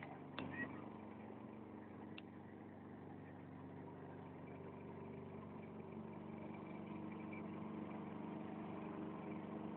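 Motorboat engine running steadily under way, a little louder from about six seconds in. Two brief clicks in the first few seconds.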